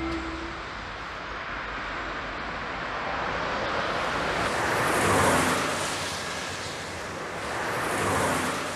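Cars passing on a road over steady outdoor noise, with two whooshes that swell and fade, about five and eight seconds in.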